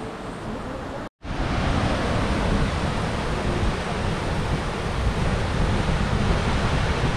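Steady rushing of a rocky mountain stream, with wind buffeting the microphone in an uneven low rumble. The sound drops out for a moment about a second in, then comes back louder.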